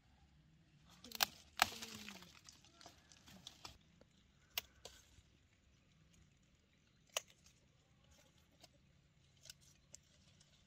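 Pepper stems snapping as peppers are picked by hand off the plants, with leaves rustling: two loud snaps a second or two in, then scattered single snaps.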